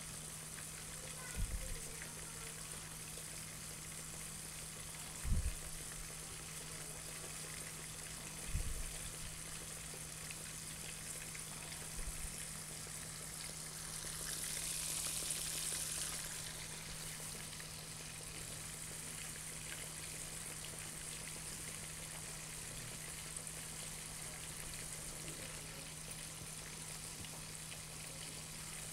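Battered fish pieces deep-frying in hot oil in a wok: a steady, soft sizzle that swells for about two seconds midway. A few soft low knocks come in the first nine seconds, over a steady low hum.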